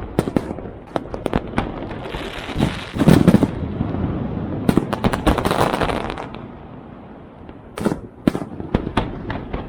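Aerial fireworks going off in a dense barrage of bangs and crackling bursts, heaviest about three to six seconds in, then thinning to a few separate bangs.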